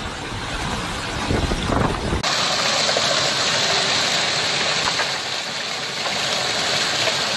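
Storm wind rumbling against the microphone, then, after a sudden cut about two seconds in, the steady hiss of heavy hail and rain pelting down on a lawn, with a few sharp ticks of stones striking.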